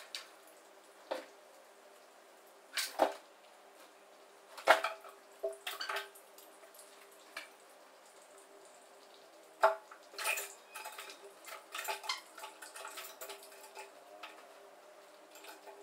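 Cat eating from a plastic food bowl on a tile floor: irregular crunches and clicks, busiest in the second half, over a faint steady hum.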